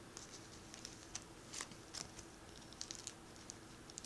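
Faint, scattered crinkles and ticks of clear plastic sleeves and bubble wrap being handled with gloved hands.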